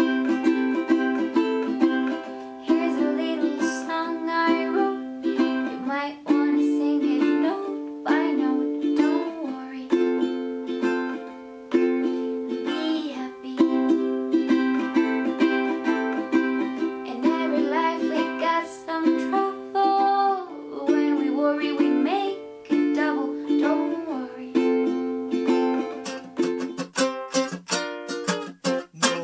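Ukulele music: a plucked melody of bright, quick notes over chords, turning to rapid strumming near the end.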